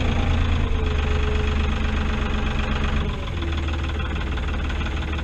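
Tractor engine running steadily, its note and loudness dropping slightly about three seconds in.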